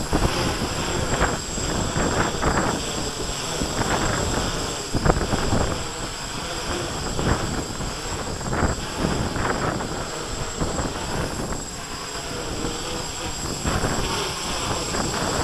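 Gusty wind buffeting the microphone, over the buzz of a Q450 quadcopter's four electric motors and propellers as it flies in a 7 m/s wind.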